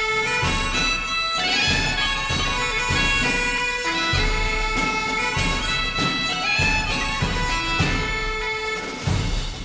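Bagpipe music: a tune of held notes over a constant low sound.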